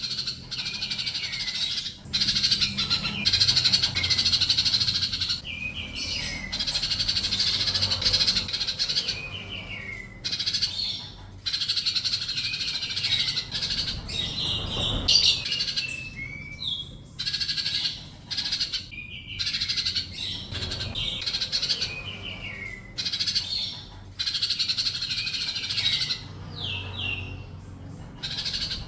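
Sunbird (kolibri) singing: rapid, high-pitched twittering phrases a few seconds long with short pauses between them, some phrases ending in quick falling notes.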